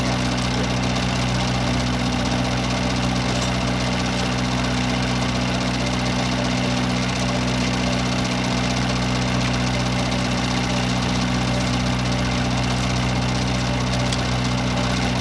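Steady machine hum with several constant low tones, running evenly and unchanged throughout, like an idling engine or motor.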